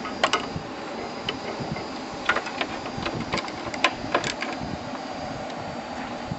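Ratchet and socket worked on a bolt on a garden tractor's steel frame: scattered sharp metallic clicks and clinks, coming in small bunches about two and four seconds in, over a steady background hum.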